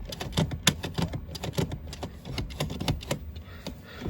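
Driver's seat of a car being adjusted: a quick, irregular run of sharp clicks and light knocks, several a second.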